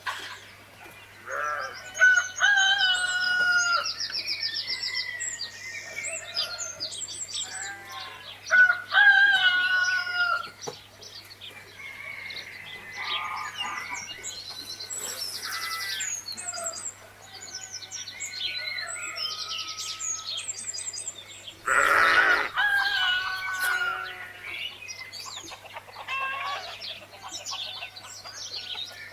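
Roosters crowing several times, loudest about two, nine and twenty-two seconds in, over constant chirping and trilling of small songbirds, with a faint steady low hum beneath.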